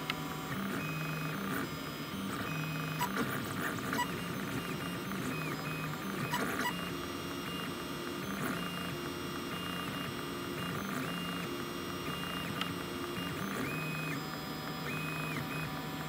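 A 3D printer at work: its stepper motors sing in short steady tones that change pitch with each move, over the steady whir of the hotend cooling fan, with a few light clicks.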